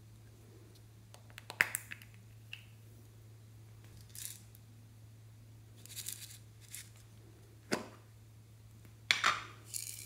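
Hands handling small hard plastic containers: a few sharp plastic clicks and snaps with brief rustles between them, the loudest cluster near the end as a capsule-shaped plastic pill box is gripped to be opened. A steady low hum runs underneath.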